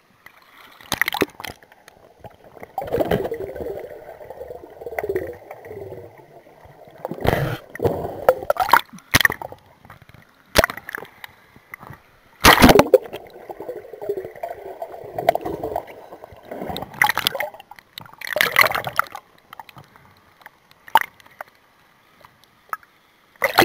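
Underwater sound in a swimming pool: gurgling and churning water from finning players close by, broken by several sharp knocks.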